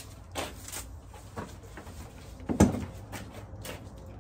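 Magnetic mesh screen door pushed open and falling closed, its magnet strips clacking as the two halves snap back together: a string of short clicks, with one louder thump about two and a half seconds in.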